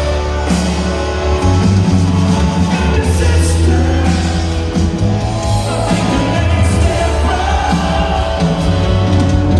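A live band performing loudly with a singer, with a heavy steady bass line.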